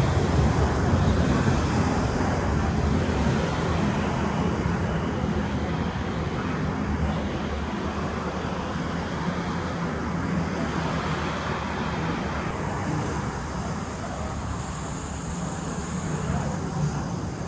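Passenger train running past on the tracks, a steady low rumble that slowly dies away as it recedes.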